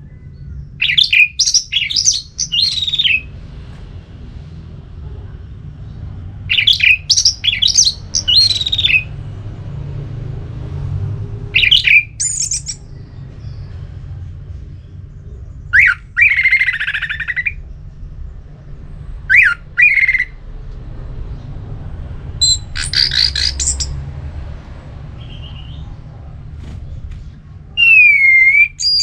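Orange-headed thrush (anis merah) singing loud, clear 'ngeplong' song phrases: about seven short bursts of fast whistled notes, each separated by a pause of a few seconds, over a steady low hum.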